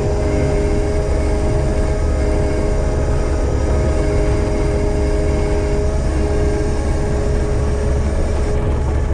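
A heavy machine's diesel engine running steadily under load, a deep rumble with a steady whine over it.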